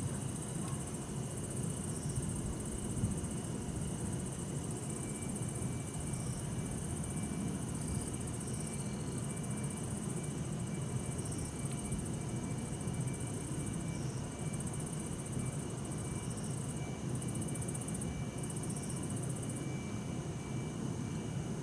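Crickets, bell crickets among them, chirping steadily in several high, overlapping songs, with short chirps every second or two, over a constant low hum of distant city traffic.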